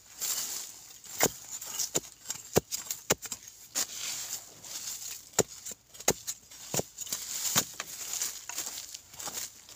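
Hand-digging in dry, crumbly soil: a metal digging blade chops into the earth in irregular sharp strikes about once a second, with soil scraping and crumbling as it is loosened and cleared from the hole.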